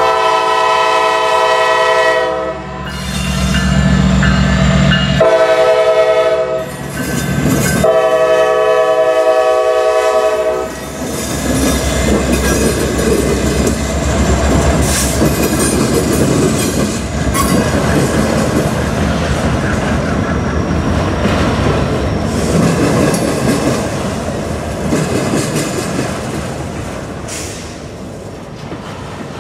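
Norfolk Southern rebuilt EMD SD70ACU locomotive's air horn sounding three blasts, the middle one shorter, over the rumble of the diesel engines. Then the train's autorack cars roll past with the clatter of steel wheels and a light wheel squeal, fading slowly toward the end.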